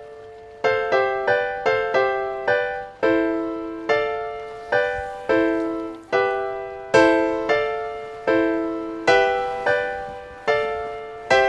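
Background music: a solo piano playing a slow melody, one note or chord at a time, each ringing and fading before the next.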